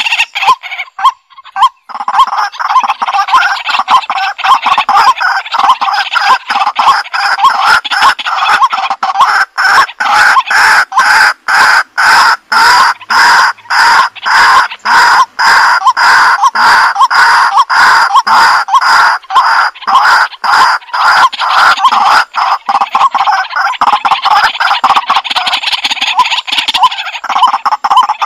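Poultry calling continuously, many rapid calls packed together, with a brief lull about a second in.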